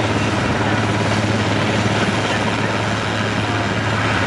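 Airbus AS332 Super Puma helicopter hovering low: its rotors and twin turbine engines run steadily with a loud, even drone over a constant low hum.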